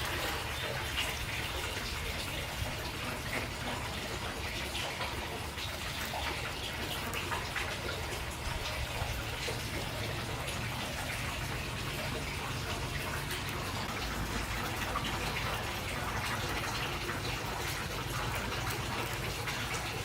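Running water with light splashing and small crackles throughout.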